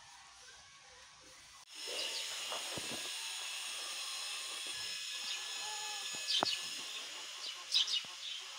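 Faint background music, then from about a second and a half in, steady outdoor hiss with birds chirping in short bursts, a few chirps near the end.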